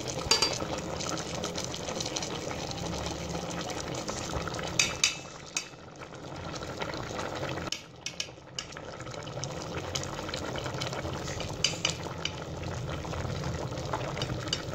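A pot of chana dal and chicken simmering with a steady bubbling, while a metal fork clinks and scrapes against the pot a few times as boiled chicken pieces are lifted out.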